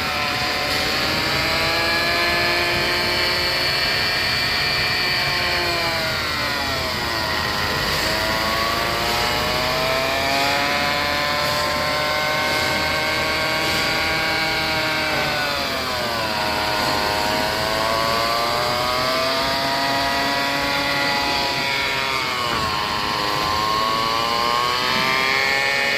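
Toyota RAV4 transmission whining while driving at 40-50 km/h: a layered whine with several pitches that slowly rises, then drops sharply and climbs again three times. The whine is the sign of a transmission noise at low road speed.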